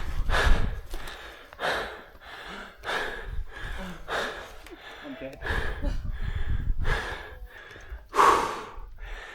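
A person breathing hard, one heavy breath about every second and a quarter, the loudest near the end, over a low rumble.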